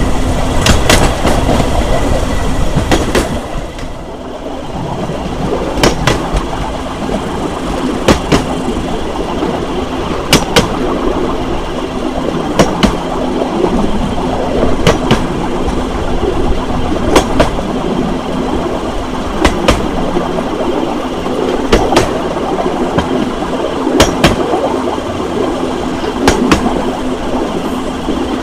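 Rail cruiser's steel wheels rolling along the rails, with a steady rumble and hum and a sharp click or close double click about every two seconds as the wheels cross the rail joints.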